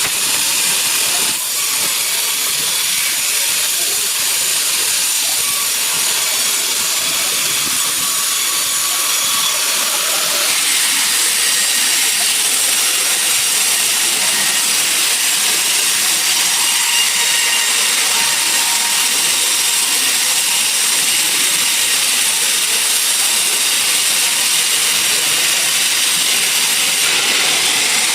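Sawmill saw running and cutting through a log: a loud, steady, hiss-like noise that shifts in tone about ten seconds in.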